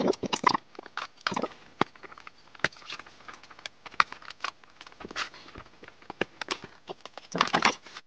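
Sharp, irregular clicks and taps of a MacBook Pro's aluminium bottom cover being pried loose with a plastic pick and handled, with a quick run of clicks near the end as the cover comes free.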